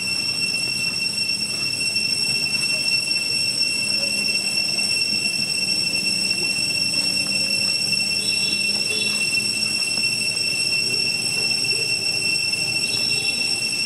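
A steady high-pitched whine with overtones, unchanging throughout, with a few faint short chirps about eight seconds in and again near the end.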